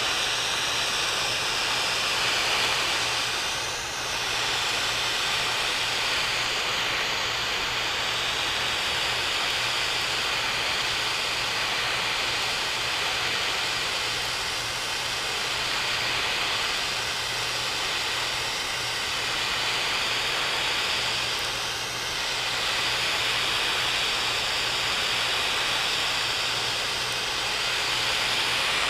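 Large propane torch flame burning with a steady, loud hiss as it heats a copper radiator pipe joint to melt solder in. The hiss dips briefly twice, about four seconds in and again near twenty-two seconds.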